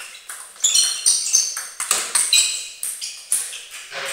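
A fast table tennis rally: the celluloid ball clicks in quick succession off the rubber-faced bats and the table, several sharp ringing pings a second. A duller knock comes near the end as the point finishes.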